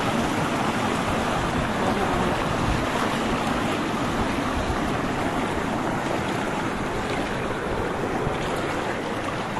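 Shallow water sloshing and splashing steadily as a person wades through it, with a continuous rushing water sound.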